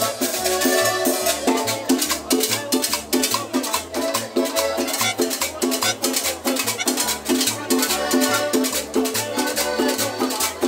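Small Latin dance combo playing: a repeating bass line under a steady beat and dense, rapid shaker-like percussion.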